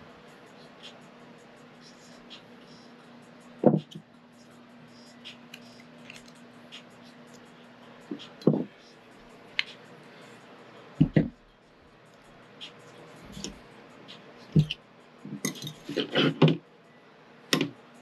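Metal tools and engine parts being handled and set down: scattered sharp clanks and clinks, with a quick run of them near the end, over a faint steady hum.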